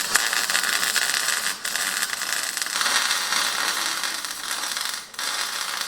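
MIG welder (Everlast iMig 200) laying a weld on heavy steel tubing: a steady crackling hiss, stopping briefly about one and a half seconds in and again near five seconds.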